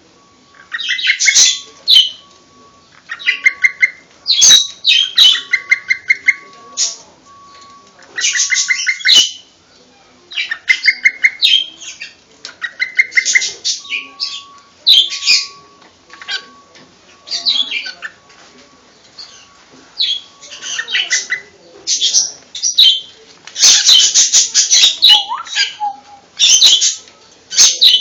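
Cockatiel chirping: bouts of rapid, evenly spaced chirps alternate with louder, harsher calls. The bouts repeat every second or two, with short pauses between them.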